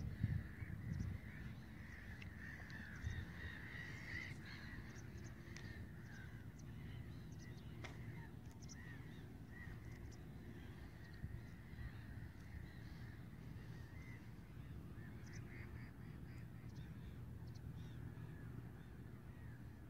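Faint, irregular bird calls over a steady low rumble of outdoor air. A few soft knocks sound in the first few seconds.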